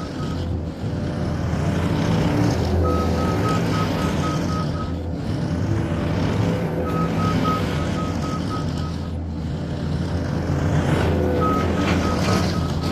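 New Holland C232 compact track loader's diesel engine running steadily under load while it works back and forth, its reverse alarm beeping in spells of about two seconds each time it backs up, three more times after the first spell ends near the start.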